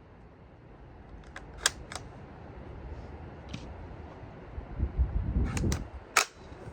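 Gunfire at a shooting range: single sharp shots, two about a second and a half in and a quick cluster of three near the end, with a low rumble between them.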